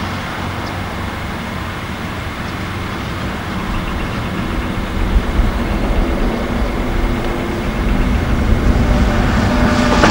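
Diesel engine of a Mercedes-Benz heavy dump truck running as it drives past, a steady low rumble that grows gradually louder toward the end.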